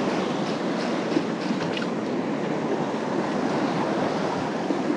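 Sea surf churning against rocks: a steady rush of breaking whitewater.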